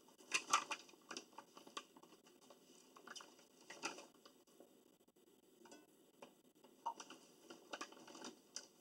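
Plastic snack bag crinkling and rustling as it is pulled open and handled, in irregular short crackles.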